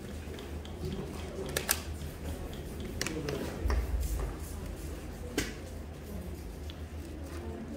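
Small-room ambience with faint background voices, a steady low rumble and a few sharp clicks or taps, the loudest about a second and a half in and again past the five-second mark.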